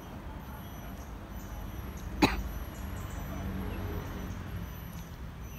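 Steady low outdoor rumble, with one sudden sharp knock a little over two seconds in.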